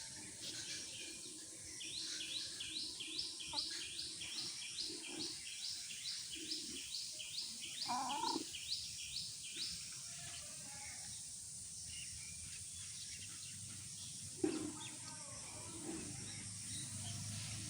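A bird chirps rapidly, high falling notes about three a second for some eight seconds, with a few low hen clucks in between. A single sharp knock comes about two-thirds of the way through.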